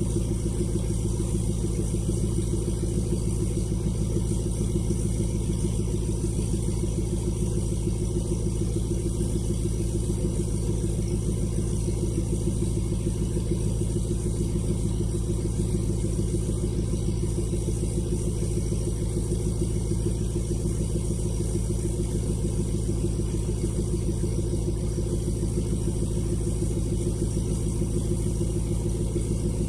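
Ford 6.7 L Power Stroke turbo-diesel V8 idling steadily, heard from behind the truck at the exhaust.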